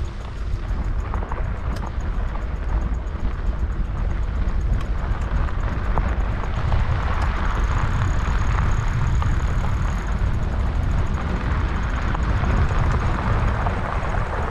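Wind rumbling on the microphone and bicycle tyres rolling over a rough dirt track during an e-bike ride, with scattered small ticks. A faint high whine comes in about seven seconds in and fades a few seconds later.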